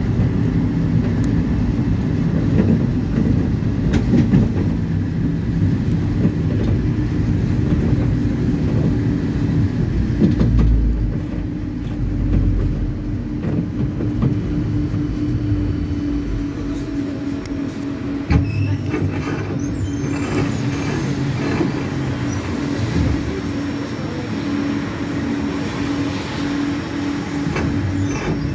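Inside a BKM-845 tram: the rumble of the wheels on the rails while it runs, easing off about eleven seconds in as it slows. Under it runs a steady electrical hum. A single clunk comes about eighteen seconds in.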